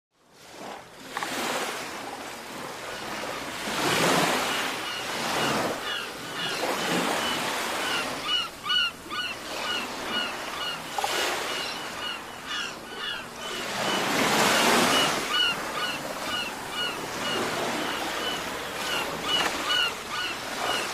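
Sea waves breaking and washing onto a shore, fading in from silence and swelling and ebbing every few seconds. From about eight seconds in, birds call with short, repeated chirps.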